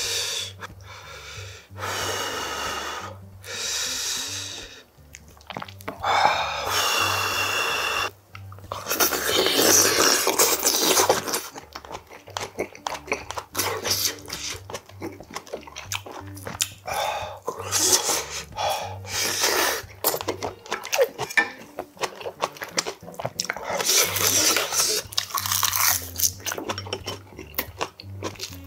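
A man eating spicy braised pork kimchi with rice, close to a clip-on microphone: a series of short, pitched breaths drawn through the mouth in the first several seconds, then slurping and chewing with many small clicks of chopsticks and spoon on the bowls.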